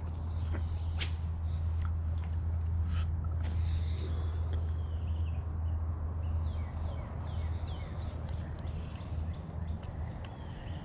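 Songbirds chirping in short, falling calls over a steady low rumble, with a few sharp clicks in between, the loudest one at the very end.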